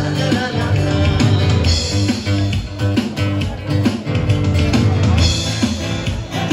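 Background music with guitar and drums and a steady beat.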